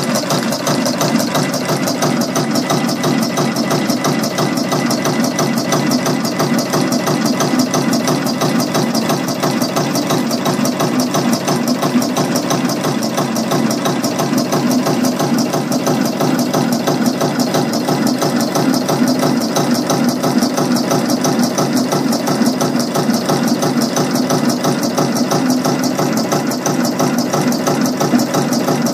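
Decor two-color automatic rhinestone setting machine running a design, its head picking and placing hotfix stones with a rapid, even, unbroken mechanical clatter.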